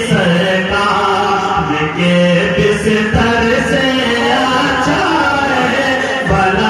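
A man's voice singing a naat, an Urdu devotional poem, into a microphone, in long drawn-out held notes.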